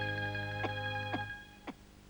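Background score music: a held chord over a low bass note with a few plucked notes. It stops about a second and a half in and fades away.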